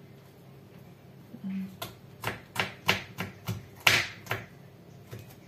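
Kitchen knife chopping a carrot on a wooden cutting board: a run of about nine sharp taps, roughly three a second, starting about two seconds in and stopping a second before the end.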